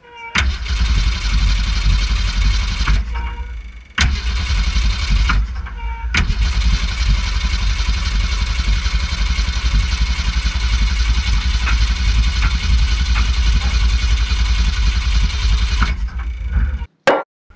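The 1965 Ford Fairlane's engine catches and runs on fuel poured into its carburetor. It cuts out about three seconds in and again about five seconds in, picks up suddenly each time, then runs steadily before faltering and cutting out near the end.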